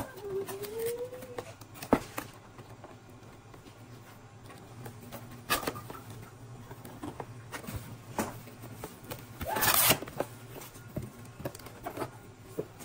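Cardboard box and packaging being opened and handled: scattered clicks and knocks of the flaps and inner carton, with a louder scraping, tearing sound about ten seconds in.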